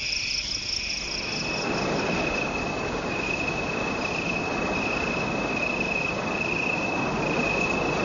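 Crickets chirring in one steady high trill, with an even rushing noise building up behind them from about a second in.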